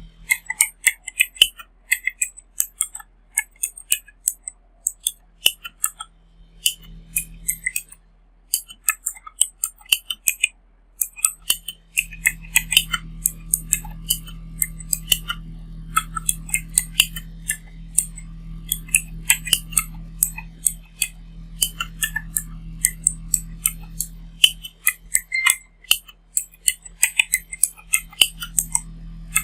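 Rapoo V500 PRO-87 mechanical keyboard being typed on: rapid, irregular clacking of its mechanical key switches, with brief pauses between runs of keystrokes.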